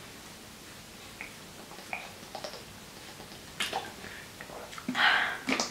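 Quiet sounds of someone drinking from a plastic water bottle: a few faint swallows, then a short crackle from the bottle a little past halfway, and a breath out near the end.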